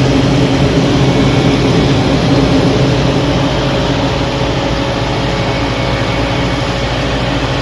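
Hoshizaki ice machine running in its freeze cycle: a steady mechanical hum with low droning tones.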